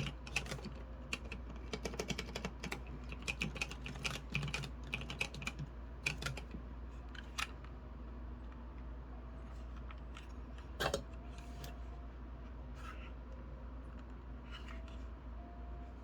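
Keystrokes on a 3D-printed Corne split keyboard: quick typing for about the first six seconds, then only a few scattered key presses.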